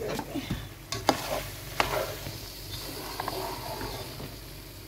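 A spatula stirring chickpeas (chana) in a steel pot on the stove, with a few sharp knocks against the metal over the sizzle of the cooking masala.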